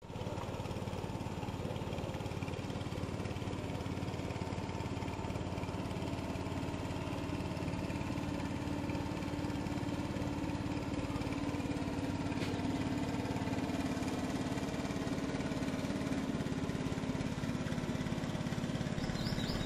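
Small stern-mounted engine of a wooden long-tail boat running steadily as it motors along the river, a continuous drone that grows slightly louder past the middle.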